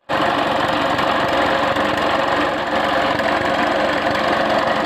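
Honda GX200-type single-cylinder four-stroke engine running steadily with its air-cleaner cover and filter off. It is a worn, smoking engine due for new piston rings.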